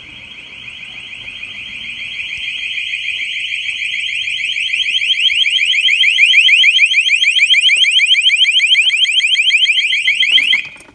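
STI exit-door alarm sounding a high, rapidly repeating electronic warble of quick rising sweeps. It grows louder over the first several seconds, then cuts off abruptly near the end as it is switched off.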